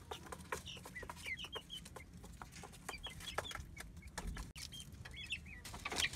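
Young chickens peeping in short, high chirps, with scattered light clicks.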